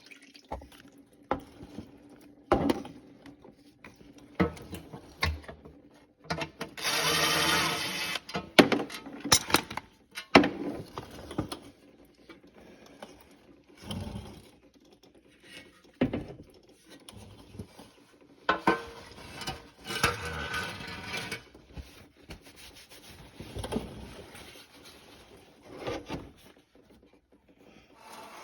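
Automatic transmission fluid pouring and dripping from a 4T65E transmission pan as it comes down, with splashing spells about 7 and 20 seconds in, among scattered clanks and knocks.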